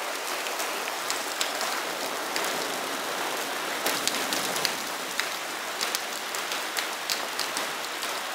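Heavy rain falling steadily after a hailstorm has stopped, with many scattered sharp taps of drops striking hard surfaces.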